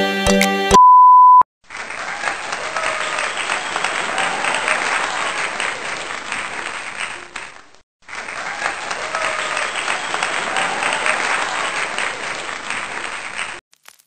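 A brief steady electronic beep about a second in, then applause with faint crowd voices, in two stretches of about six seconds each that look like the same recording played twice. Each stretch cuts off abruptly.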